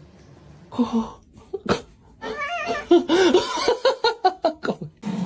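A cat meowing, with a person laughing in short repeated bursts about halfway through.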